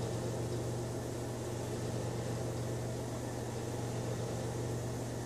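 Steady low hum with an even fan-like hiss: the background of a kitchen with an appliance running, with no distinct events.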